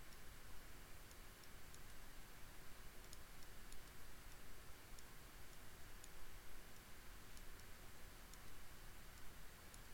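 Faint computer mouse clicks, a scattering of light clicks at irregular intervals, over a steady low hiss.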